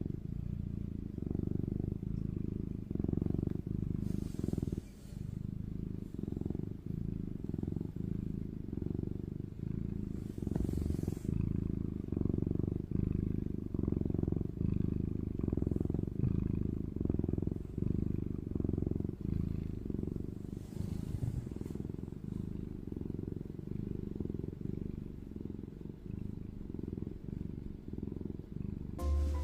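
Domestic cat purring close to the microphone: a continuous low rumble that swells and eases with each breath.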